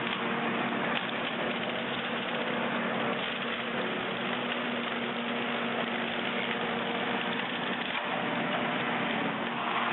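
Skid steer engine running steadily while its hydraulic brush cutter attachment spins, a constant hum under a dense hiss that grows a little louder near the end.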